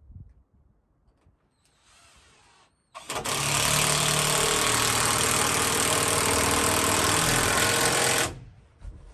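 A power tool runs under load for about five seconds and stops abruptly, after a shorter, quieter burst just before it.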